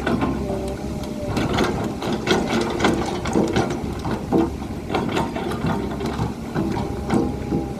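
Hydraulic excavator at work: its diesel engine runs steadily under many irregular metallic clanks and rattles, with a faint steady whine.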